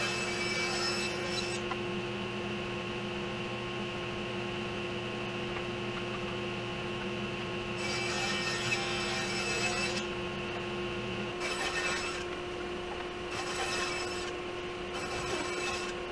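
Table saw running with a steady motor hum and about five bursts of cutting noise as a mahogany plank is ripped into strips.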